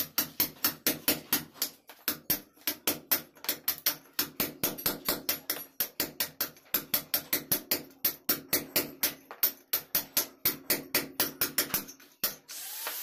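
A hammer beating a steel cold chisel into a brick-and-plaster wall, chipping out a channel for concealed conduit. The blows come rapidly and evenly, about four or five a second, with brief pauses about two seconds in and near the end.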